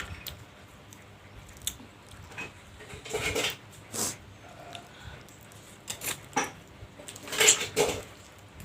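Close-miked eating sounds of bakso meatball soup: irregular clicks of a spoon against a bowl mixed with short wet chewing and slurping bursts, the loudest just before the end.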